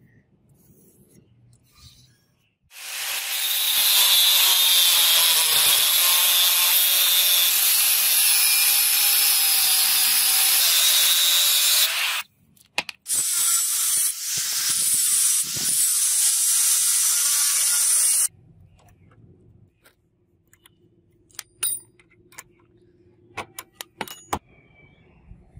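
Electric grinder cutting into the tip of a steel blade blank: a loud, steady hiss with the motor's pitch wavering under load, in two long runs with a short break between them. It cuts off suddenly about two-thirds of the way in, followed by a few light clicks.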